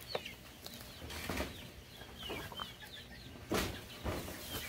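Chickens clucking and chirping in short, scattered calls. A fainter knock comes about a second in, and a louder, sharp knock about three and a half seconds in.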